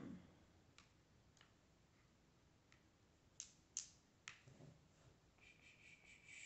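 About half a dozen faint, scattered clicks of fingers with long nails pressing and tapping a laptop touchpad. Near the end a faint high, steady tone comes in.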